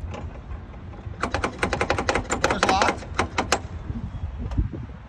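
Rapid rattling clicks, several a second, from a long-reach lockout tool being worked inside the door of a Mack semi through a wedged-open gap; the clicking starts about a second in and stops after about two and a half seconds.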